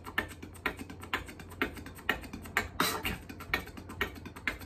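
Beatboxed 'train beat': a fast, steady rhythm of mouth clicks and breathy hissing strokes, about four to five a second, imitating a speeding coal-mine train.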